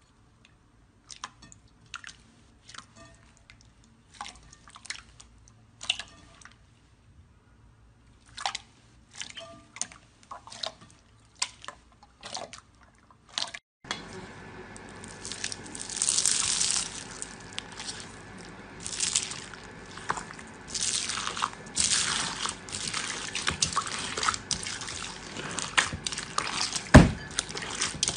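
Slime being squeezed and poked by hand, giving short wet clicks, pops and squelches. They are sparse at first; after a cut about halfway they come denser and louder over a steady hiss.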